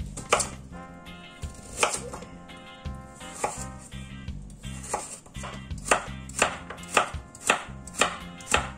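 Chef's knife chopping a carrot on a wooden cutting board, each cut a sharp knock. A few spaced cuts come first, then a steadier run of about two a second from around five seconds in as the carrot is cubed.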